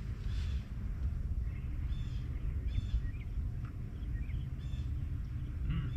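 Birds calling outdoors: several short, harsh calls spaced a second or two apart, over a steady low rumble.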